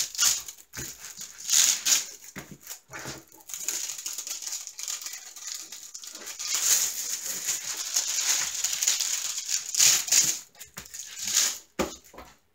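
Clear plastic film on a diamond painting canvas crinkling and rustling in irregular bursts as hands smooth and flatten the canvas.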